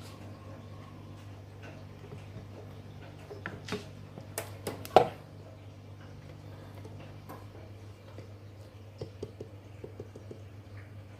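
A steady low hum with a cluster of sharp clicks and knocks, the loudest knock about five seconds in, and a few fainter ticks later.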